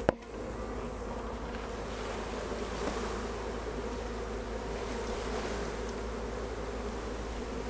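Steady buzzing of a large cloud of honey bees as a package of thousands of worker bees is poured into a hive. The bees are confused rather than angry. One sharp thump sounds at the very start.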